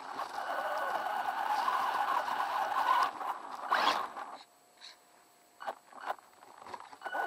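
WLtoys 10428 RC car's electric motor and gears whining while it drives over a dirt trail, with scraping from the tyres and chassis on the ground. A little over four seconds in the drive cuts off, leaving only scattered scrapes and clicks.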